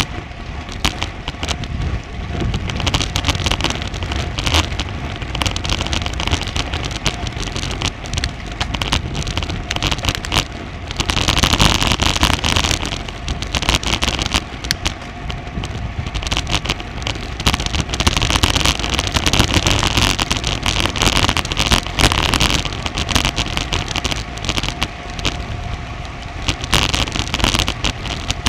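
Wind rushing and buffeting over a bike-mounted action camera's microphone while riding, with a crackling rattle from the road and bike. The rushing swells louder twice, about a third of the way in and again about two thirds in.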